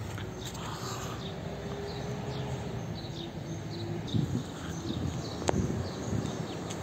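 Street ambience: a steady low rumble with small birds chirping repeatedly, and a single sharp click about five and a half seconds in.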